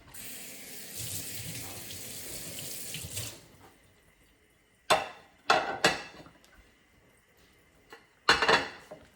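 Kitchen tap running into a sink for about three seconds, then stopping. Later come several sharp clatters of dishes being handled and set down, a group of three and then a louder pair near the end.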